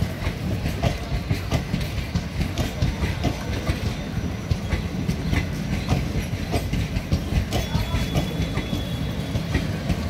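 Indian Railways passenger coaches rolling past, their wheels clicking over rail joints at an irregular pace over a steady low rumble.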